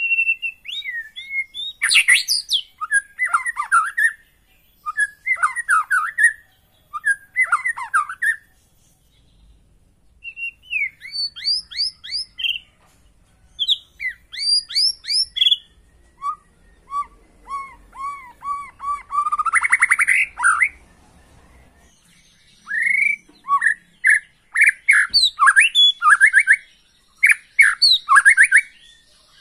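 White-rumped shama (murai batu) singing: varied loud phrases of clear whistles and fast chattering notes, each a second or two long with short pauses between. Near the middle comes a longer run of repeated swooping notes that builds in loudness.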